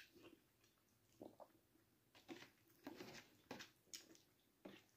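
Faint chewing and mouth sounds of a person eating a mouthful of spaghetti bolognese: a few soft, short smacks scattered through an otherwise near-silent room.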